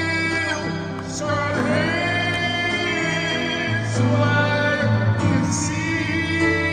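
Gospel song: long held, wavering sung notes without words over a steady bass line and instrumental backing.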